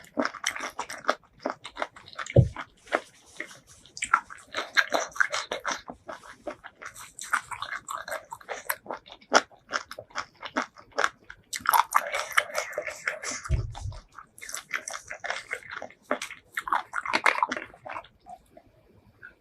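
Close-miked mouth sounds of someone eating seafood: repeated bites and wet chewing full of quick clicks, coming in spells with short pauses. There is a brief low thump about two and a half seconds in and another about fourteen seconds in.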